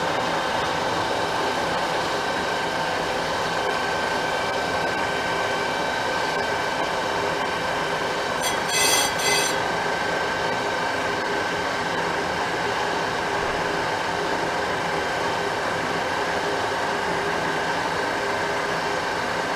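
Metal lathe running steadily with a constant whine, spinning a drilled, vented Porsche brake rotor. About halfway through, a brief high-pitched squeal comes in two short bursts.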